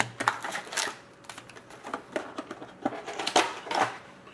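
Hockey card packs and their foil wrappers being handled on a table: a string of quick clicks, taps and short rustles, the loudest about a second in and again near three and a half seconds.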